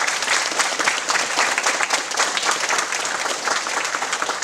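An audience of parents clapping for a named award winner, many hands applauding steadily, then fading near the end.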